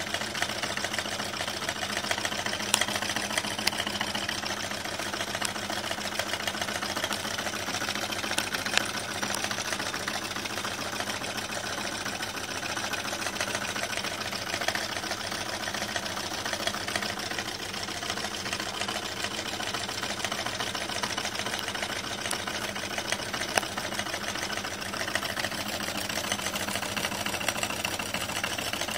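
Small Stirling engine heated by four candles running steadily, its moving parts clattering in a fast, even rhythm, with an occasional louder click.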